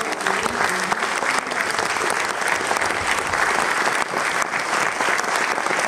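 A theatre audience applauding, a dense and steady sound of many hands clapping.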